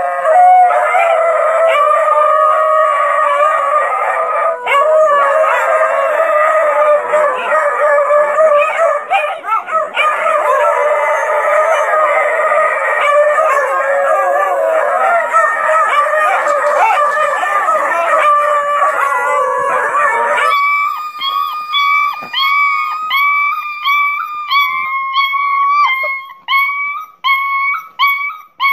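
A pack of basset hounds howling together in a long, overlapping chorus. About 20 seconds in, it changes abruptly to a single dog giving a run of short howls, about one a second.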